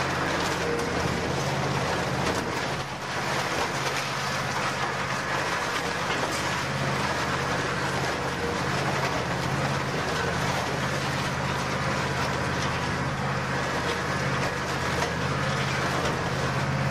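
Mobile twin-shaft shredder running and tearing up scrap metal between its rotating shafts. A steady low drone sits under a continuous rough noise of metal being broken up.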